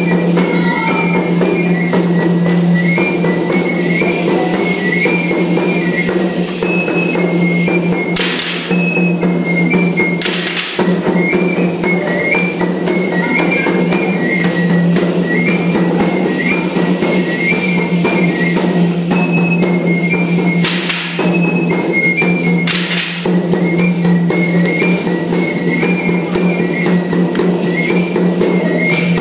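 Music for a traditional costumed dance: a high pipe repeats the same short whistling figure over and over above a steady low drone and drumming, with a few brief rattling bursts.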